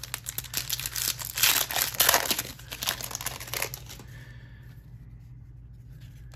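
Wrapper of a trading card pack being torn open and crinkled by hand, a dense crackling for about four seconds that then drops away as the cards are slid out.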